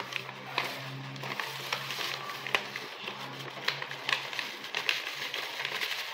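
Clear plastic bag crinkling and rustling, with irregular crackles, as powdered brownie mix is poured out of it into a mixing bowl. A low steady hum runs underneath.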